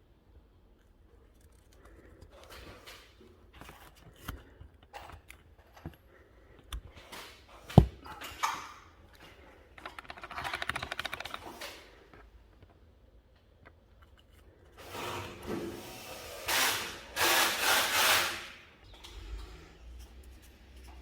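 Hand work on a car's trunk trim: scattered clicks and knocks, one sharp knock about 8 seconds in, and two longer stretches of rubbing noise, the second the loudest.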